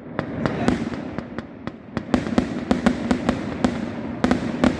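Fireworks going off in quick succession: a steady run of sharp bangs, several a second, thickening into a closer cluster near the end.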